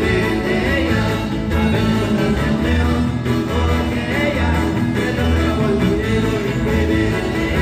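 Live marimba band playing dance music, with a steady pulsing bass beat.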